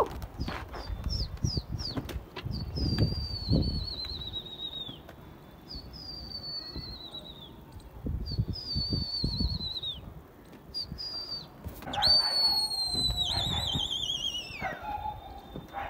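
A flock of domestic pigeons flying, with irregular whooshes of wings and a swung flag. Over it comes a series of shrill whistles, each falling in pitch; the longest and loudest starts about twelve seconds in and wavers as it falls.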